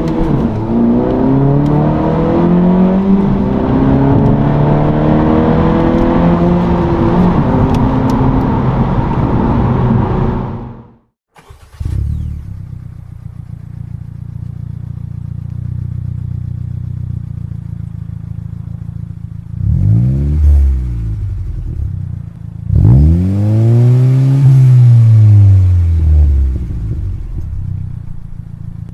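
Honda Civic Si / Acura Integra turbocharged 1.5-litre four-cylinder running through a MagnaFlow NEO cat-back exhaust, its revs rising and falling repeatedly; the sound cuts off abruptly about eleven seconds in. Then the same engine with a Spoon Sports N1 muffler idles, revved up and let fall back twice, around twenty and twenty-four seconds in, with another rev starting at the very end.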